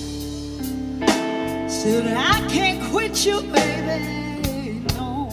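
Live blues band playing a slow blues: electric guitar with bending notes over bass guitar and a drum kit striking at regular intervals.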